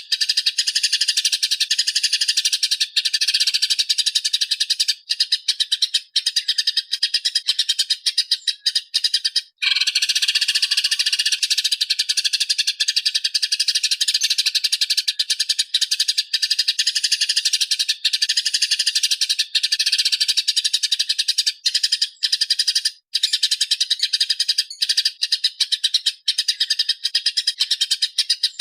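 Small songbird singing a continuous, rapid, high-pitched chattering song. It breaks off briefly a little under ten seconds in, then carries on.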